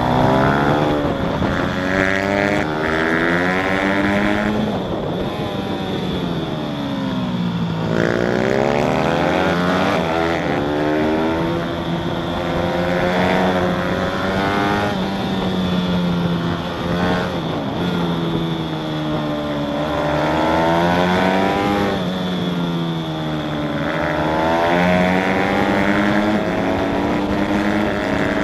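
Motorcycle engine at speed on a track, repeatedly revving up in pitch as it accelerates out of corners and dropping back as it slows for the next, heard from onboard.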